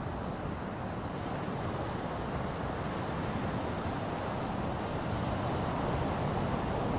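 Ocean surf: a continuous wash of breaking waves that swells slowly, loudest near the end.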